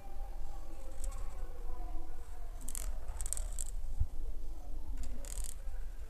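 Marker tip scratching on paper in short colouring strokes, a cluster of them around the middle and another near the end, with a soft bump between them.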